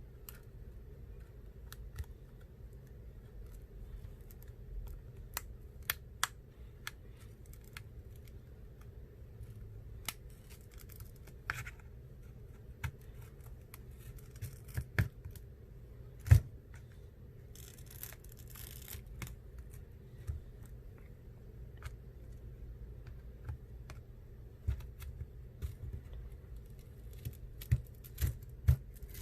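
Small tools working on an iPhone XR being opened for a screen replacement: scattered sharp clicks and taps of a tool on the phone's case, a louder click a little past halfway, and a few short bursts of scraping.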